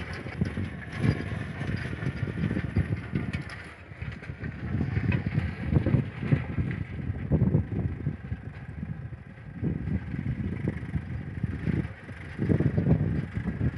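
A Sonalika tractor's diesel engine runs steadily under load while pulling a Lancer rotavator, whose blades churn through dry, cloddy soil. Wind buffets the microphone in uneven gusts over it.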